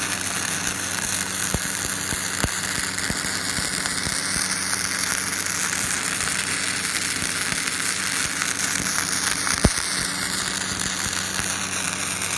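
Gasless self-shielded flux-cored wire welding arc, crackling and hissing steadily while laying a fillet weld, over a steady low hum. There is one sharper pop about ten seconds in.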